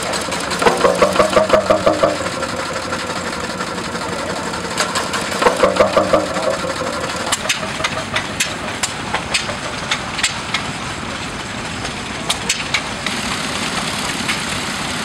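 Vintage engines running, with two short bursts of fast rhythmic exhaust beats near the start and about five seconds in, then sharp ticks every half second or so over a steady mechanical clatter.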